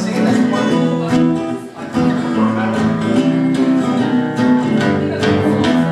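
Two acoustic guitars playing together: strummed chords ringing on, with a short dip in the playing about one and a half seconds in.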